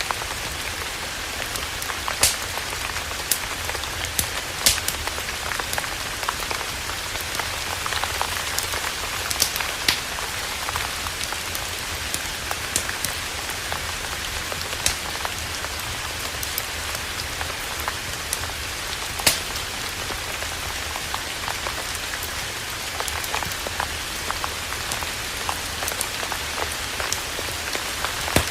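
Campfire crackling: a steady hiss with sharp pops at irregular intervals.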